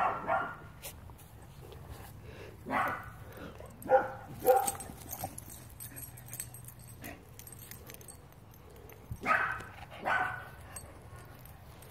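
A dog barking in play: about six short barks, with a pair close together near the middle and another pair near the end.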